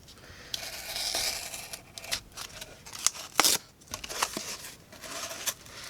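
A folding knife's M390 steel blade slicing through damp cardboard. A long hissing cut starts about half a second in, followed by a few sharp clicks and taps.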